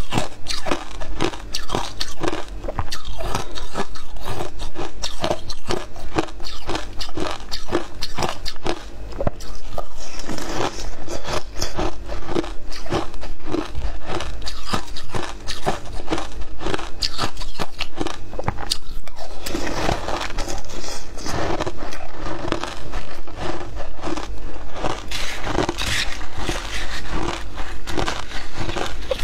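Close-miked crunching and chewing of frozen matcha ice, a dense run of rapid cracks with no pause.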